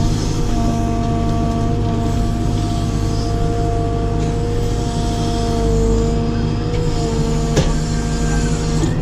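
Caterpillar 432F2 backhoe loader's diesel engine running under working load, heard from inside the cab, with steady whining tones from the hydraulics as the backhoe arm dumps soil and swings back. There is a single sharp knock about seven and a half seconds in.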